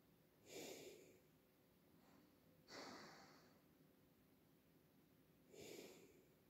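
A sleeping wolfdog breathing slowly, with three soft breaths about two and a half seconds apart.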